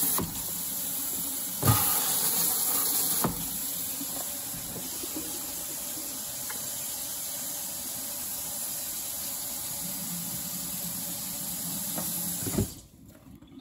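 Kitchen faucet running, the stream splashing over a rubber gas mask held under it for rinsing; the splashing is loudest in the first three seconds, with a couple of light knocks of the mask. The water stops abruptly about a second before the end.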